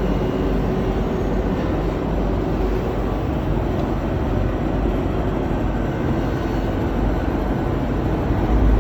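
VITAP BC 92 edge banding machine running steadily, a continuous mechanical whir over a low hum, getting a little louder near the end.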